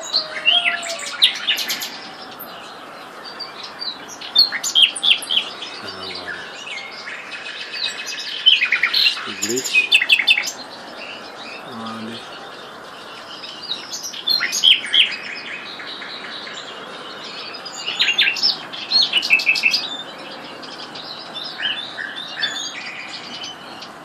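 A songbird singing short phrases of high chirps and trills, one phrase roughly every four seconds with pauses between.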